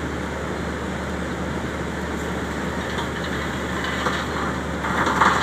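Diesel engine of an XCMG rotary drilling rig running steadily with a constant low drone, and a brief louder burst of higher-pitched noise about five seconds in.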